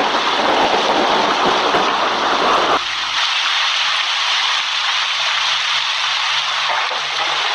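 Steady hiss of rain. About three seconds in, the deeper, heavier part of the rain cuts off abruptly, leaving a lighter, higher-pitched rain hiss.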